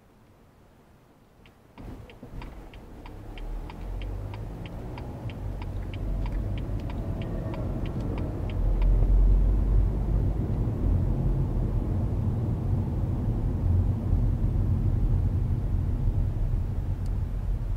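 A car pulling away from a standstill and accelerating, heard inside the cabin: engine and road rumble rise suddenly about two seconds in and build. The turn-signal indicator ticks about three times a second through the turn, stopping about halfway through.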